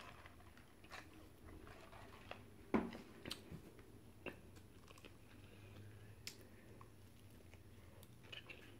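Faint chewing and mouth clicks of a person eating a strawberry and cream pie, with scattered small clicks and one louder knock about three seconds in.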